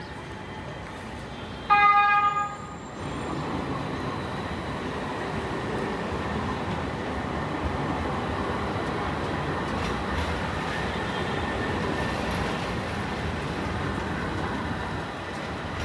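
A vehicle horn sounds once, a short single-pitched toot a little under two seconds in. It is followed by the steady rumble of a large vehicle passing close by on the street.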